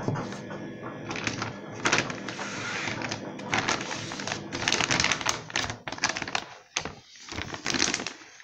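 Soft plastic laundry-powder bag crinkling and rustling as it is handled and turned over, with irregular crackles and clicks, beside knocks of a plastic powder container.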